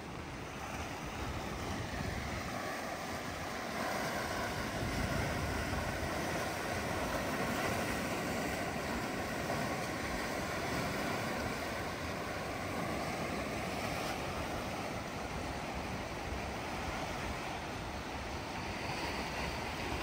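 Sea waves washing and breaking against shore rocks: a steady surf noise that grows a little louder in the first few seconds, with wind buffeting the microphone.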